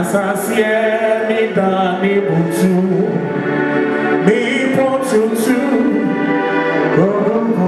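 A man singing in long, held, wavering notes into a microphone, heard through the hall's loudspeakers.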